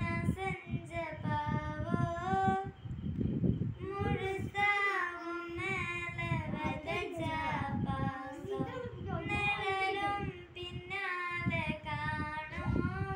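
A child singing a song unaccompanied, in sung phrases with short pauses between them.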